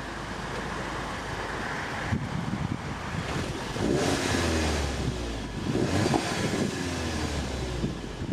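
Stock 2017 VW Golf 7 GTI Facelift's 2.0-litre turbocharged four-cylinder engine accelerating, its note rising in pitch in two pulls from about halfway through.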